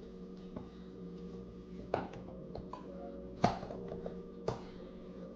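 Scattered sharp metallic clicks and taps of hand tools and screws while the scooter's wheel hardware is fastened, with one louder clack about three and a half seconds in. A steady low hum runs underneath.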